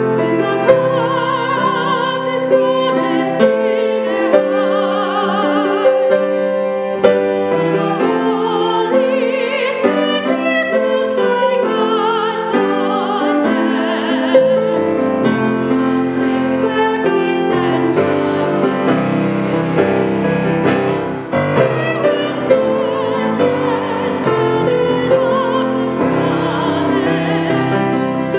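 Two women singing together with piano accompaniment, their voices held in long notes with vibrato.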